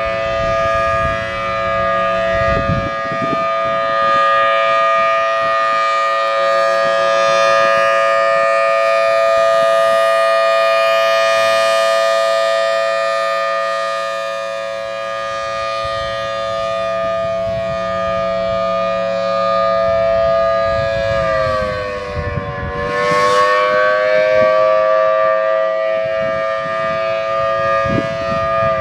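Federal Signal Thunderbolt civil defense siren sounding a steady two-note chord, then dropping in pitch about 21 seconds in, rising slightly, and falling again near the end.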